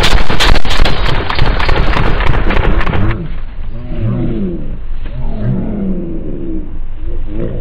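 Rapid gunfire sound effect, about four shots a second, that stops about three seconds in. It is followed by a man's long, falling groans as he goes down.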